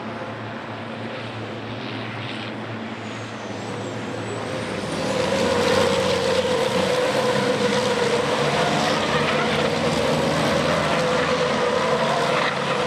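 Several race trucks' turbo-diesel engines running at racing speed. The sound swells from about five seconds in as the trucks pass close, then cuts off suddenly at the end.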